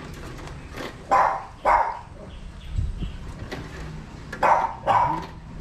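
A dog barking: two short barks about a second in, then two more about four and a half seconds in.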